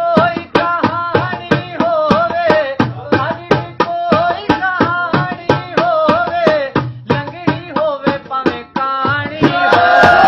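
A man sings a Hindko mahiya folk song, his voice bending and wavering, while he beats a quick rhythm by hand on a drum. Near the end the sound grows louder and fuller.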